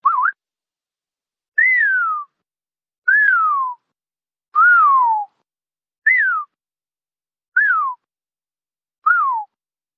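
Mouth whistling: a short wavering, rising whistle right at the start, then six separate 'pyuu' whistles about a second and a half apart, each gliding down in pitch. They come in two sets of three, the first set longer and the second shorter, each whistle in a set starting a little lower than the one before.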